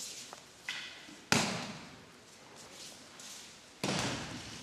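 Thumps of aikido practitioners taking breakfalls on tatami mats as they are thrown. A sharp slap onto the mat comes about a second in and a second heavy thud near the end, each ringing briefly in the large hall.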